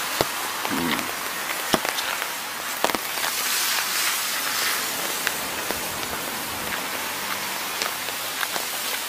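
Steady rain falling, with drops striking the umbrella overhead as scattered sharp ticks over an even hiss.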